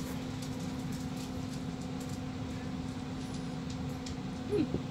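Steady low hum with a constant pitch: room tone from running machinery, such as a fan or air conditioning.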